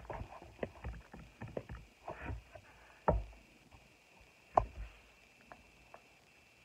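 Hand and arm movements while signing: irregular soft taps, slaps and rustles of skin and clothing, with two louder knocks about three and four and a half seconds in.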